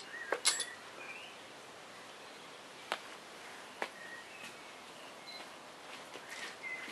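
A few sharp clicks or taps, about half a second in and twice more around the middle, over a quiet background with short, faint high chirps like small birds.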